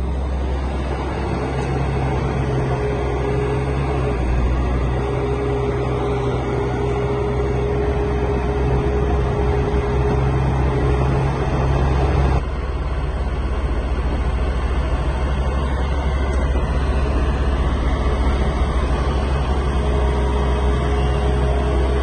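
Heavy diesel machinery, an excavator working beside dump trucks, running steadily as a low drone with a held whine above it. The sound changes abruptly about twelve seconds in, then runs on steadily.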